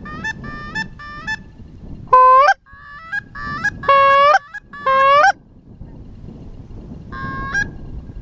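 Goose honks: a run of short honks, each breaking sharply upward in pitch at its end. Fainter ones come in the first second, three loud ones between about two and five and a half seconds in, and one more near the end.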